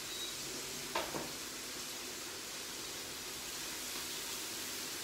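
Onion, mushrooms and lardons sizzling in a frying pan as a steady hiss. Two quick metallic clanks of the pan and utensil come about a second in.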